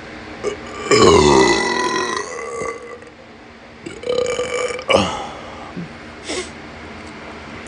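A person burping: two long burps, the first starting about a second in and the second about four seconds in, then a short faint one near the end.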